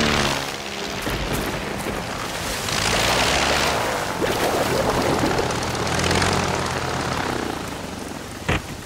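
Small single-engine propeller seaplane's engine droning over steady rain, swelling louder twice. A short sharp click comes near the end.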